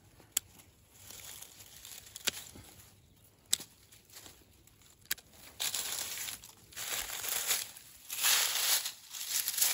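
Four sharp clicks a second or two apart, then bursts of crinkling, rustling noise that grow louder through the second half.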